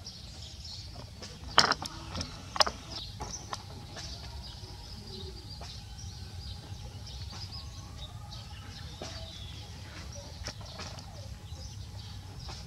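Small birds chirping on and off in the background, with a few sharp clicks in the first few seconds.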